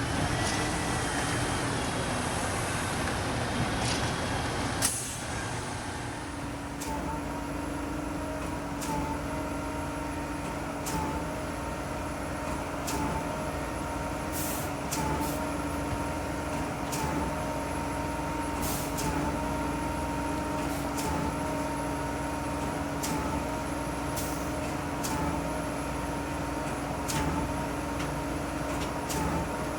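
Concrete mixer truck running, with one sharp loud burst about five seconds in, then a steady hum and a short click repeating about every two seconds.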